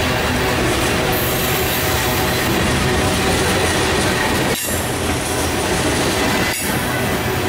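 Freight train cars rolling past, steel wheels on the rails making a loud, steady rumble and clatter, with two brief dips in the sound just past the middle and near the end.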